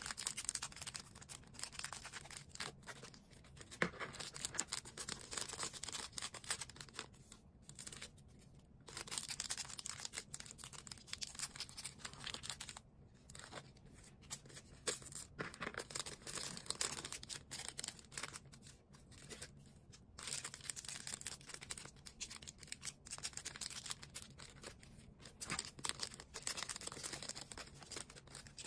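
Packaging being handled during order packing: rustling, crinkling and tearing noises in irregular spurts, broken by a few brief pauses.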